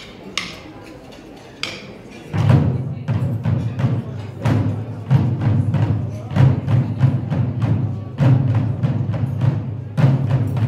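A few sharp clicks about a second apart, then, about two seconds in, an ensemble of Korean barrel drums on wooden stands starts playing a loud, fast rhythm of stick strokes on the drumheads.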